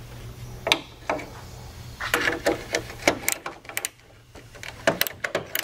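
Irregular metal clicks and knocks from a hand wrench working a rear bumper bolt loose and from the bumper being handled, over a low steady hum that stops about two seconds in.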